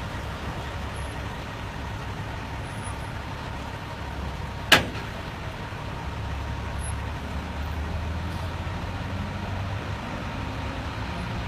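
Semi truck with a heavily loaded multi-axle lowboy trailer driving slowly past, its diesel engine and tyres making a steady low rumble that grows a little louder in the second half. A single sharp knock sounds about four and a half seconds in.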